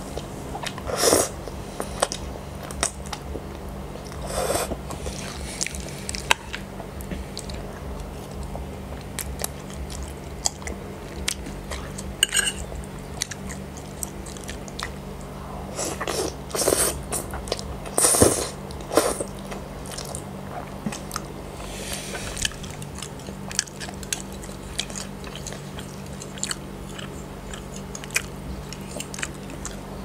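Close-miked eating of spaghetti in tomato sauce: slurping of the noodles and wet chewing, with many small mouth clicks and several louder slurps, the loudest about eighteen seconds in. A faint steady hum runs underneath.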